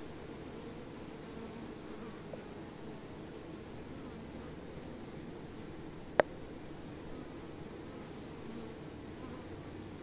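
Honey bee colony clustered on a branch, buzzing in a steady low hum over a steady thin high-pitched whine. A single sharp click about six seconds in.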